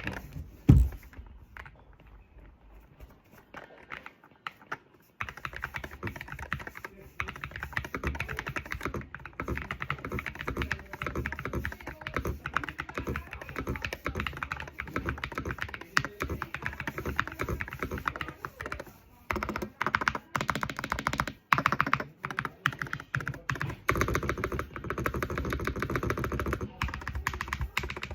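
Fast typing on an Ajazz AK680 Max magnetic-switch keyboard: a dense stream of keystrokes starting about five seconds in, with a couple of brief pauses. A single sharp thump comes about a second in, before the typing starts.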